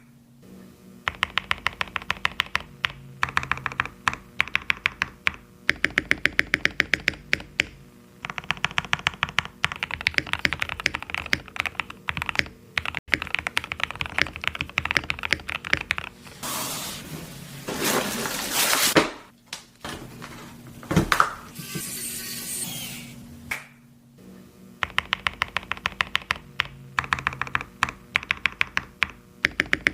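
Custom mechanical keyboard being typed on in bursts of rapid keystrokes, about ten clacks a second, with short pauses between. About two-thirds through, a couple of seconds of louder rustling noise and a few single knocks interrupt the typing.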